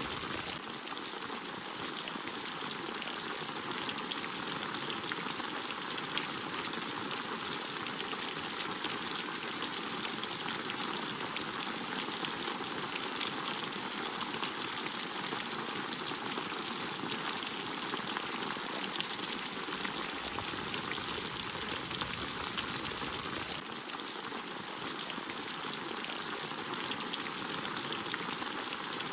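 Steady rain falling, a dense hiss of many small drop impacts, with two slight dips in level where the sound shifts a little.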